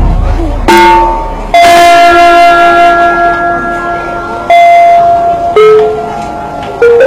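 Gamelan Sekaten playing: slow, widely spaced strikes on bronze kettle gongs and keyed bronze instruments, each note ringing on until the next.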